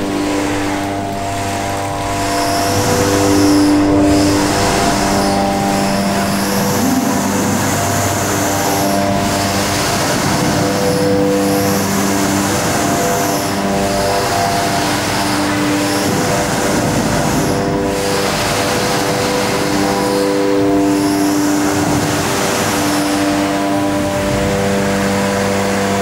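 Hydraulic wave generator of a large wave flume running: a loud machine whine of several steady tones that shift every second or two, over the splashing of water driven by the paddle.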